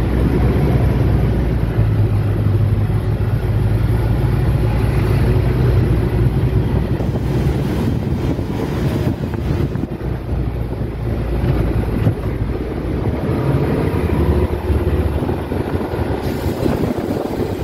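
Engine of an open-sided utility vehicle running steadily as it drives along, with wind noise on the microphone.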